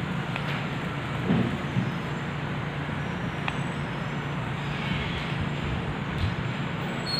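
Steady background hiss with a low hum, and a couple of faint knocks about a second and a half in.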